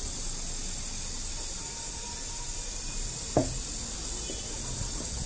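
Steady outdoor background hiss, high-pitched, over a low rumble, with one sharp knock about three and a half seconds in.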